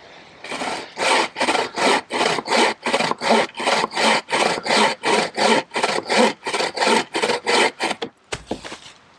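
Self-made bucksaw, a thin blade tensioned in a wooden frame, sawing through a log in fast rasping strokes, about three a second, that quicken and stop about eight seconds in as the cut goes through. A short thump follows as the sawn-off end drops.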